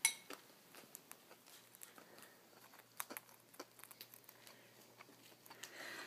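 Cockatiels pecking and nibbling at a cracker: faint, scattered little clicks and crunches, with one sharp clink right at the start.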